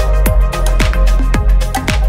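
Background music with a steady kick drum about twice a second over deep bass.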